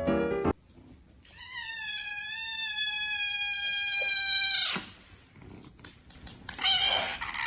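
A kitten gives one long, high-pitched meow, held for about three and a half seconds. Piano music cuts off in the first half-second, and a loud noisy sound starts near the end.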